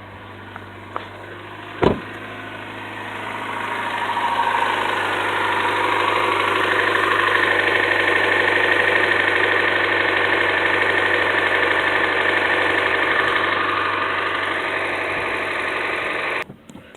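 2013 Hyundai Elantra's 1.8-litre four-cylinder engine running with the ticking and knocking noise its owner complains of, which has grown much worse. A single sharp knock sounds about two seconds in. The engine then grows louder over a couple of seconds and holds steady before cutting off suddenly near the end.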